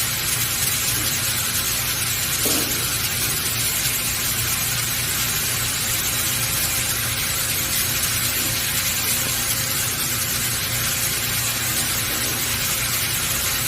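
Steady hiss with a faint, even machine hum underneath, from a robotic laser welding setup at work.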